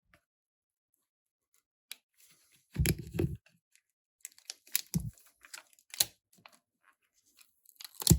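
Hand-work on a smartphone's internal parts with small tools: scattered clicks and taps, with a louder half-second cluster about three seconds in and a sharp click near the end, as components are pried off the old screen.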